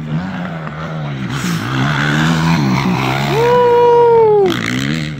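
2008 Honda CRF450R single-cylinder four-stroke dirt bike engine revving hard as the bike approaches and takes a jump. A high held rev comes about three seconds in and falls away after a second or so. A steady lower engine hum runs underneath.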